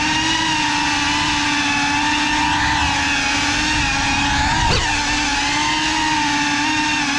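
GEPRC Cinelog 35 FPV cinewhoop's brushless motors and ducted propellers whining in flight, the pitch wavering with the throttle and dipping then rising sharply about four and a half seconds in.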